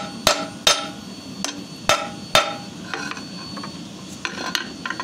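Hand hammer striking a red-hot steel bar on a steel anvil plate, forging an offset tip by hammering on two sides. About five ringing blows come in the first two and a half seconds, roughly one every half second, followed by lighter, scattered taps.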